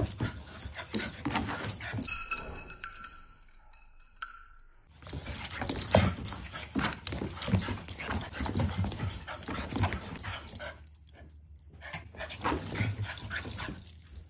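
A Siberian Husky and a Shiba Inu play-fighting: short dog vocalizations mixed with scuffling and paws knocking on the floor, in uneven bursts. There is a quiet lull a few seconds in, with only a faint whine, and a brief drop again around eleven seconds.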